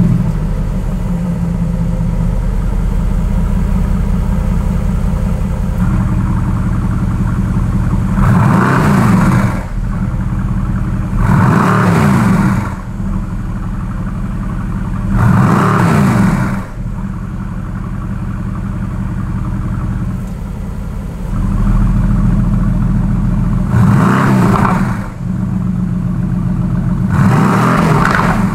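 Mercedes-AMG GT's 4.0-litre twin-turbo V8 idling through its quad exhaust. It is blipped five times, each rev rising and falling back in about a second.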